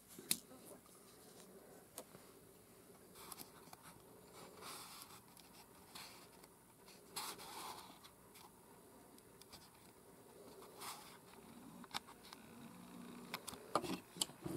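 Faint, scattered small clicks and rustles of close hand work: a small tool and tiny rhinestones being handled against a jewelry clasp while stones are glued in, with a few slightly louder taps near the end.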